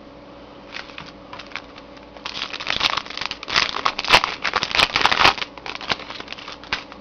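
Trading card pack wrapper being torn open and crinkled by hand, a dense run of crackling from about two seconds in to about five and a half seconds, with scattered crinkles before and after.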